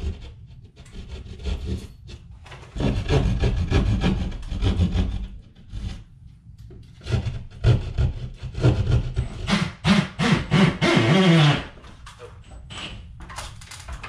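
A hand-held cutting tool rasping and scraping into a drywall ceiling at a speaker cutout, in two long spells with quieter scraping between.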